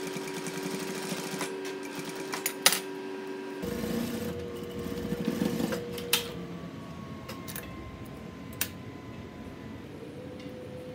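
Juki single-needle industrial sewing machine running as it stitches a knit T-shirt neckband, a steady hum with a few sharp clicks.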